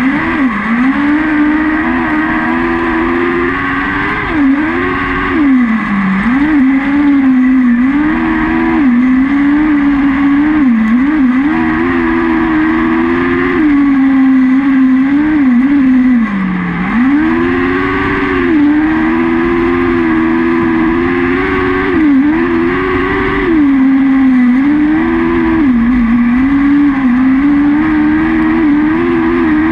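Mini sprint car's motorcycle engine running hard, heard from on board. Its pitch climbs on each straight and drops briefly every few seconds as the throttle comes off for the turns, with two deeper dips about six and sixteen seconds in.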